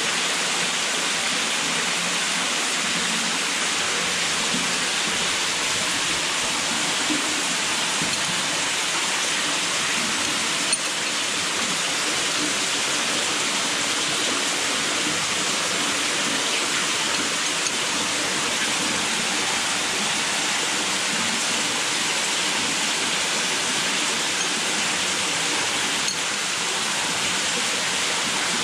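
Steady rushing of a small underground waterfall, with one faint click about eleven seconds in.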